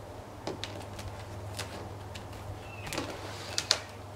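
Tarot cards being handled and shuffled on a wooden table: scattered soft card clicks and taps, with a sharper flurry of clicks about three seconds in, over a faint steady low hum.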